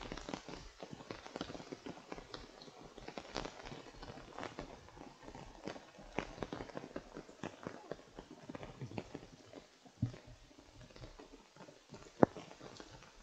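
Irregular taps of rain dripping onto an open umbrella overhead, mixed with footsteps on wet timber-edged trail steps. A few sharper knocks stand out, the loudest near the end.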